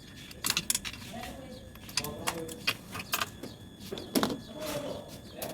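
A series of sharp clicks and knocks, irregularly spaced, with the loudest near the end, over faint background voices.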